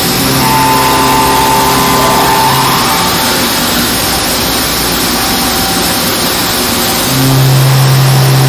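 OKK HM-100S horizontal machining center's CAT 50 spindle cutting metal under flood coolant: a steady hum with a higher whine over a loud spray hiss. The tones fade out about 3 s in with a short rising whine, then return louder about 7 s in.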